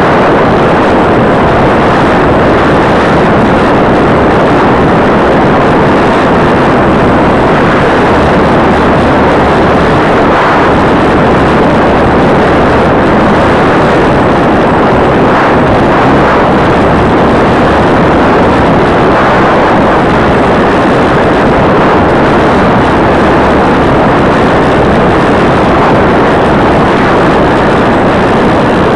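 Slow Stick RC plane's electric motor and propeller heard through its onboard camera's microphone: a loud, steady, distorted rush of noise with a low hum beneath, unchanging throughout.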